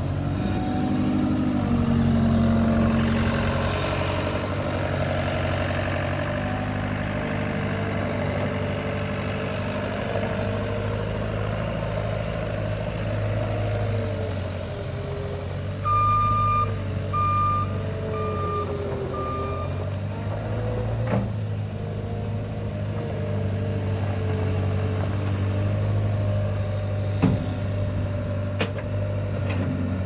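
Caterpillar 256C skid steer loader's diesel engine running as the machine is driven and turned, its engine speed rising and falling. Its reverse alarm beeps four times a little past halfway.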